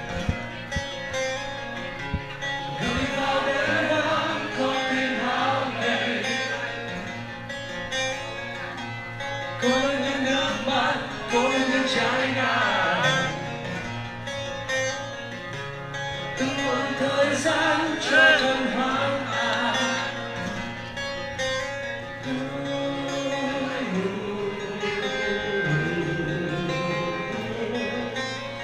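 Live rock band playing, with electric guitar and singing.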